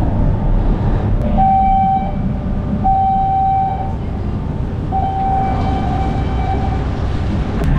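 Ferry's horn sounding three times at one steady pitch, the last blast the longest, over the steady low rumble of the boat's engine.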